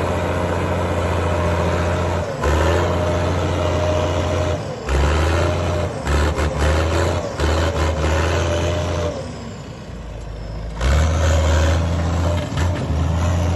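Mercedes diesel engine of a CBT farm tractor running with a deep rumble. Its revs rise and fall several times, and it drops away for a couple of seconds past the middle before picking back up.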